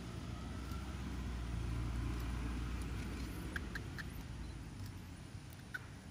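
A low steady rumble that fades out about halfway through, with a few short, faint high chirps in the second half.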